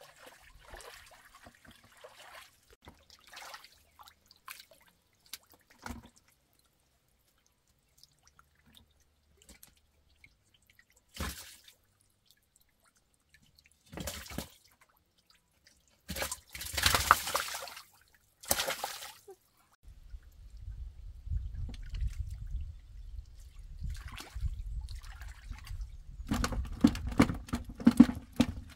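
Water splashing and dripping in short, irregular bursts, loudest about halfway through. A low rumble joins for the last several seconds.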